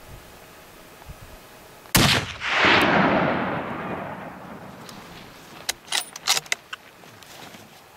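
A single rifle shot cracks about two seconds in, and its long echo rolls off the mountainside and fades over a few seconds. A few sharp clicks follow near the end.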